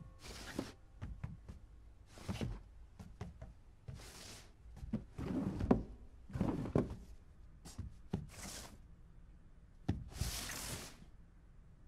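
A box being shoved and dragged along a floor in a series of short scrapes, with knocks and thunks between them; the longest scrapes come about halfway through and near the end.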